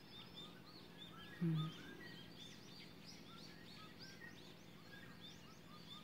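Many small birds chirping and calling over one another in short, quick, rising-and-falling notes, faint and continuous. A single short, low sound cuts in about a second and a half in.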